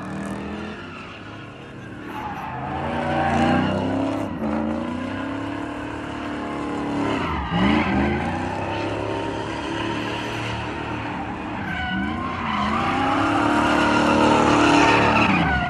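A vehicle drifting in circles on pavement: the engine is revved hard, its pitch dropping and climbing again several times, over a continuous screech of sliding tires. The sound is loudest near the end.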